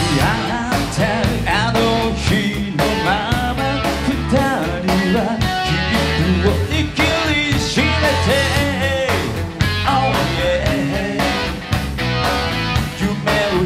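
Live rock band playing: a lead vocal sung over electric guitars, bass and a drum kit keeping a steady beat.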